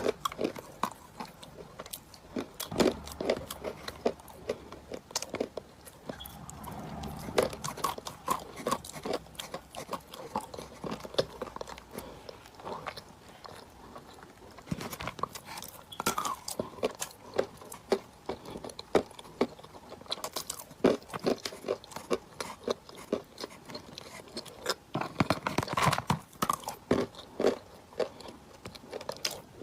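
Close-up crunching and chewing of hard chalky sticks, a person biting off pieces and grinding them between the teeth in quick, irregular crunches.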